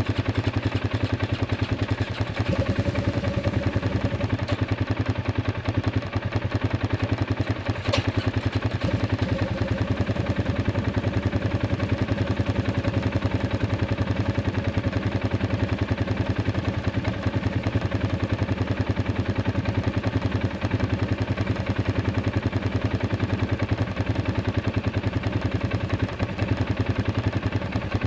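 Arctic Cat 500 ATV's single-cylinder engine idling steadily, now running after its dead battery was dealt with. A single sharp click about eight seconds in.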